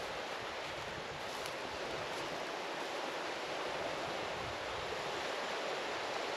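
Steady wash of small waves breaking along a shore, mixed with wind.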